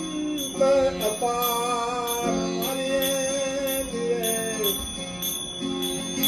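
Devotional bhajan music: a male voice sings a long, wavering held line over a steady harmonium drone, while small hand cymbals (manjira) keep a steady beat about twice a second. The voice drops out near the end, leaving the drone and cymbals.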